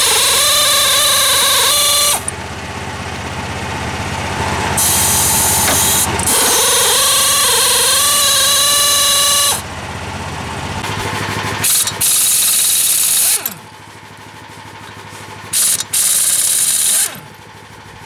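Power impact wrench driving a long socket extension, run in several bursts of a few seconds each with a steady whine as it spins bolts out of the engine bay.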